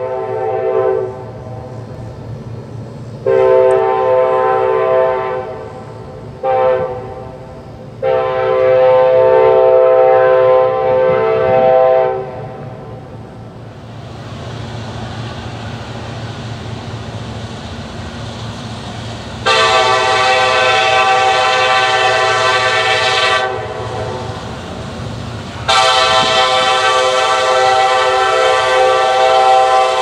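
Kansas City Southern diesel locomotive's air horn sounding the grade-crossing signal, long, long, short, long, then two more long blasts about 20 and 26 seconds in. A steady low rumble from the approaching train runs underneath.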